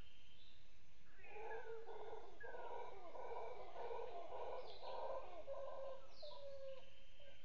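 Howler monkeys howling: a long run of rough, pulsed calls that starts about a second in and stops near the end. A few short falling bird calls sound over them.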